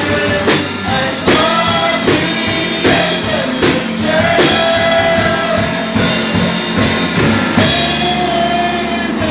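Live worship band playing with singing: male and female vocalists on microphones over electric guitars and a drum kit keeping a steady beat, the singers holding long notes.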